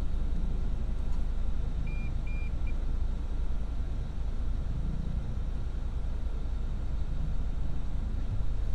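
Low, steady rumble of a car's engine and road noise heard from inside the cabin in slow traffic. Two short high electronic beeps and a shorter blip come about two seconds in.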